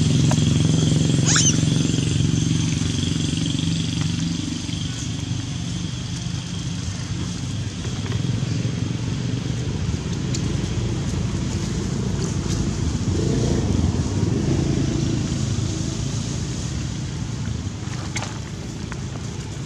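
A motor vehicle's engine running, a low steady rumble that fades gradually, with a brief high squeak about a second in.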